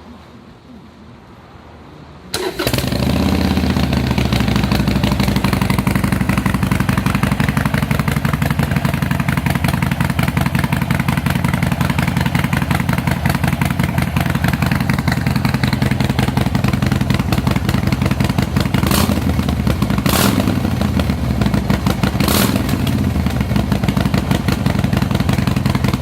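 Harley-Davidson Sportster Iron 883's air-cooled V-twin starting up about two seconds in, then idling steadily through Vance & Hines Shortshots Staggered pipes with Kijima inner silencers in place of the stock baffles. Three brief sharp sounds rise over the idle near the end.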